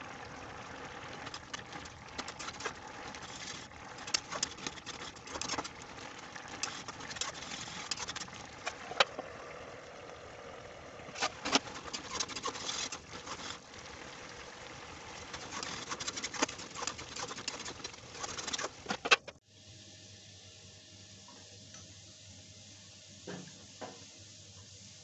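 Soya-chunk and potato curry bubbling in a metal kadhai, with a metal ladle scraping and clinking against the pan as it is stirred. About two-thirds through, the sound cuts off abruptly to a quieter steady hum with a few faint ticks as a little oil heats in the empty kadhai.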